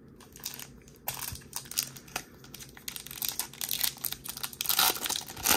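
Foil wrapper of a Topps 2022 Series 2 baseball card pack being torn open and crinkled by hand. The crackling starts about a second in and gets denser and louder near the end.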